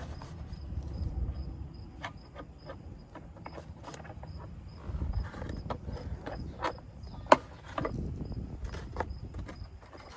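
Parts of a boxed animatronic being handled and lifted out of their packaging: scattered clicks, taps and rustles, the sharpest knock about seven seconds in. A cricket chirps faintly and regularly, about twice a second, underneath.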